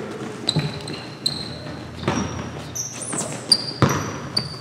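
Basketball players' sneakers squeaking on a hardwood gym floor, with scattered footfalls and a basketball bouncing, echoing in the large hall.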